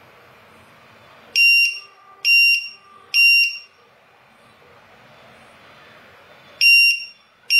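Matek lost-model finder buzzer beeping in a high-pitched tone: three beeps about a second apart, a pause of about three seconds, then another beep near the end. This is its low-voltage alarm, set off as the supply sits at the 22.2 V threshold for a six-cell pack (3.7 V per cell).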